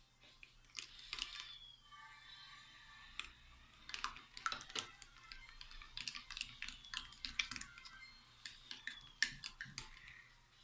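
A spoon stirring a thick mix of yogurt and sugar in a bowl, with irregular clicks and taps against the bowl that come thick and fast through the second half.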